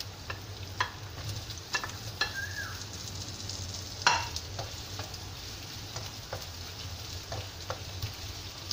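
Potato cubes dropped into a non-stick wok of frying onion and garlic, then stirred with a spatula: light sizzling with scattered taps and scrapes of the spatula on the pan, the loudest knock about four seconds in.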